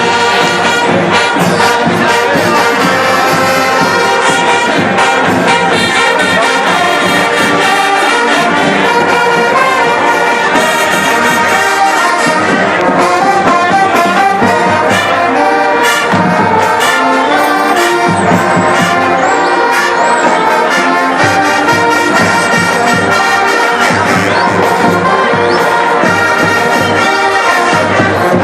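Drum and bugle corps playing: massed brass horns holding loud, full chords over a marching percussion line.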